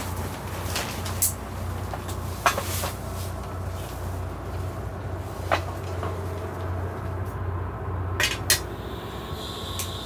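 Scattered metallic clicks and clacks as a folding camping gas stove's legs and pot supports are opened out and set down, with two quick sharp clicks near the end as the burner is lit and a faint steady high tone from the burner starting just after, over a steady low rumble.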